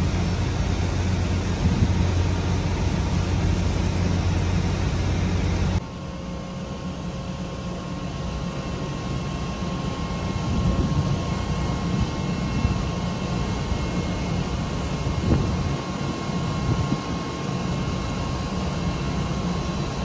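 Steady low rumble and hiss of ship ambience, machinery and wind. About six seconds in it cuts off abruptly to a quieter steady background with a faint, thin steady hum.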